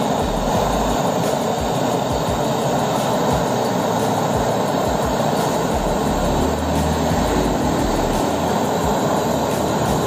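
A gas brazing torch flame hissing steadily while a copper capillary pipe is brazed at a freezer compressor.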